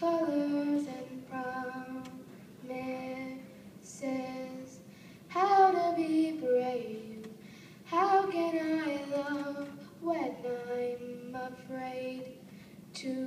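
A boy singing solo into a microphone: short sung phrases with pauses between them, a few notes sliding down in pitch around the middle.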